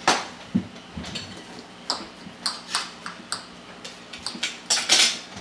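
Utensils and dishes clinking and tapping irregularly as food is served onto plates, with louder clatters at the start and near the end.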